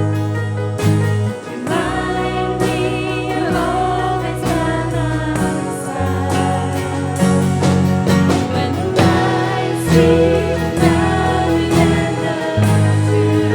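A song with singing voices over instrumental accompaniment, sustained low chords changing every second or two.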